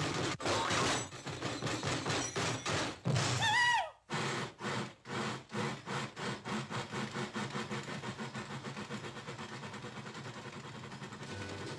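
Steam locomotive getting under way: heavy, irregular chuffs with steam, a short whistle about three and a half seconds in that drops in pitch as it ends, then steady chuffing that speeds up and grows quieter.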